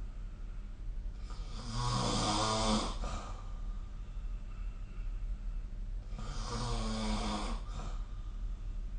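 A person snoring in their sleep: two snores about five seconds apart, each lasting under two seconds, with a low rattling drone and a breathy hiss, over a steady low hum.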